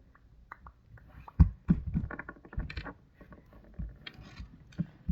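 Hands working slime: a run of short sticky squelches and clicks, densest a second or two in and again near the end, the loudest a sharp squish about a second and a half in.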